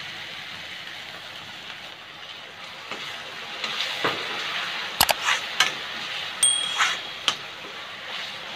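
Masala sizzling in an iron kadhai as a perforated steel spoon stirs and scrapes it, just after a little water has been added. Several sharp clinks of the spoon against the pan come in the second half.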